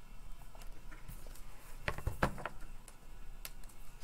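A hardcover picture book being handled and a page turned: a handful of soft taps and paper rustles, the loudest two about halfway through.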